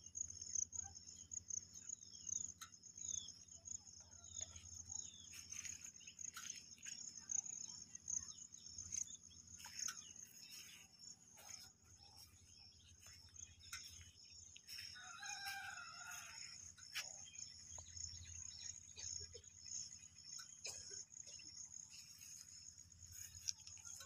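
A steady high trill of insects runs throughout, with scattered short bird chirps. About fifteen seconds in, a rooster crows once.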